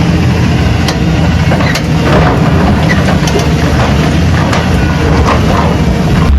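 Excavator engine running steadily with a low hum, with scattered light clicks and knocks over it.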